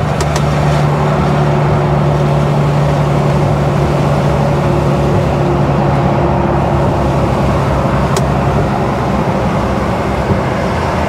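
Cab interior of a Mercedes Actros lorry on the move: the engine hums steadily under a haze of tyre noise on the wet road, easing off after about eight seconds. A couple of faint clicks come from the windscreen wiper sweeping.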